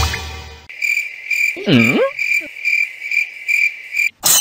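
Crickets chirping steadily, about four chirps a second, after a short tail of music at the start. About a second and a half in, a short low call dips and rises in pitch.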